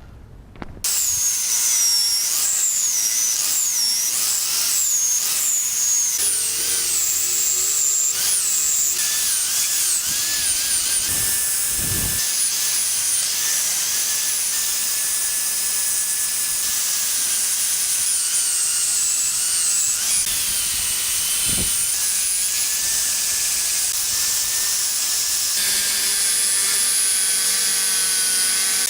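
Power grinder grinding the steel of an exhaust pipe and hanger down to clean metal for welding. It starts about a second in and runs steadily, with a high whine that wavers in pitch as it is pressed against the metal. Twice there is a brief low thump.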